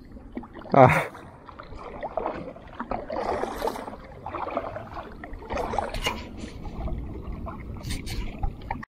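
Kayak paddle strokes in the water, splashing and dripping irregularly, with a short loud cry about a second in.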